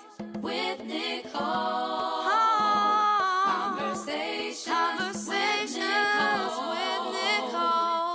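Closing theme music: unaccompanied voices singing in harmony, with long held notes, starting to fade out at the very end.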